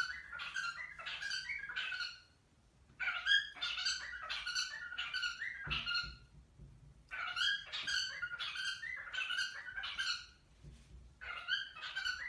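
Cockatiels calling: four bursts of short, repeated chirping notes, about three or four a second, with brief pauses between the bursts.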